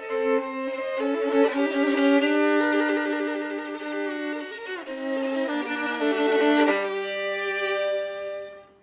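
Solo violin playing a melody with a left-hand tremolo, the fingers rapidly alternating between two notes on a lower string as its own accompaniment. The playing fades out on a final note near the end.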